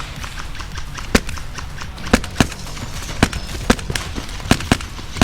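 Airsoft rifle firing single shots, about eight sharp cracks at uneven gaps.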